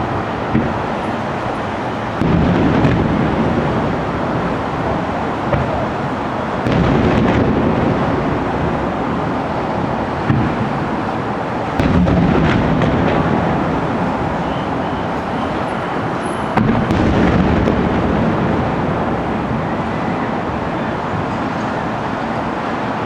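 Aerial fireworks shells bursting: four big booms about five seconds apart, each followed by a long rolling rumble, over steady background noise.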